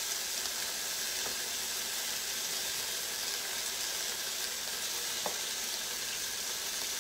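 Onions and cherry tomatoes sizzling steadily in a stainless steel sauté pan, with one faint click about five seconds in.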